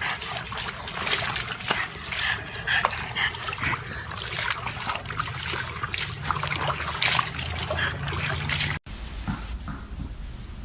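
Wet splashing and trickling water with irregular spatters, cut off abruptly near the end and followed by a quieter sound.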